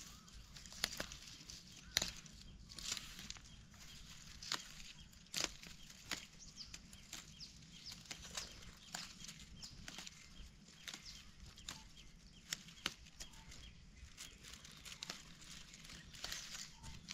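Faint crackling and rustling of dry leaves and twigs, with irregular small snaps, as hands work through a wild pak wan (Melientha suavis) bush picking its young shoots.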